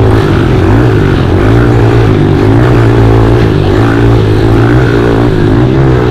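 Pit bike engine running hard under throttle, heard close from the bike itself, its note wavering up and down as the rider works the throttle over the sandy track.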